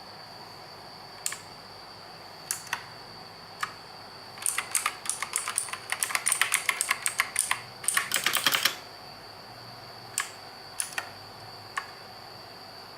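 Mechanical keyboard with clicky blue switches being typed on. A few single keystrokes come first, then about four seconds of fast typing, then a few more single clicks.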